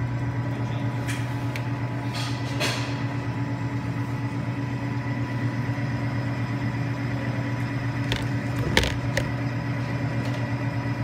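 A steady mechanical hum runs throughout, with a few sharp clicks about two seconds in and again near nine seconds, the loudest near nine seconds.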